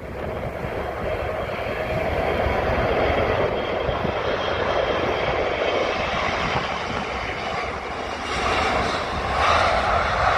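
Steady jet-engine roar from a four-engine Lufthansa Airbus A340 rolling along the runway. It grows louder over the first couple of seconds and swells again near the end.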